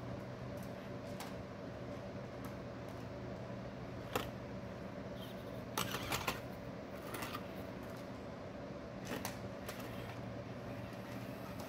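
A small Axial SCX24 RC rock crawler working over rocks: a steady low whir from its drivetrain under the sharp clicks and knocks of its tires and plastic body striking stone. The loudest knocks come in a quick cluster about six seconds in, with a few more later as the truck slides sideways off the rocks.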